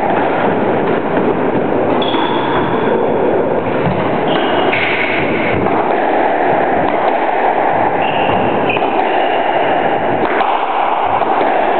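Squash rally: a few short, high squeaks from the players' shoes on the wooden court floor, over a steady, loud noise.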